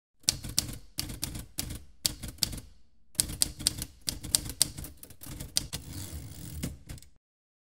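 Typewriter keys clacking in quick irregular runs as text is typed out, with a short pause about three seconds in.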